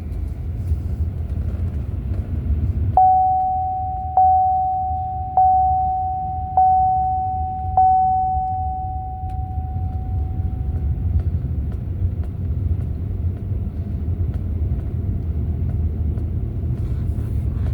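Steady low road-and-engine rumble inside a moving car's cabin. About three seconds in, a chime dings five times, evenly about a second apart, each ding ringing away, the last fading out a few seconds later.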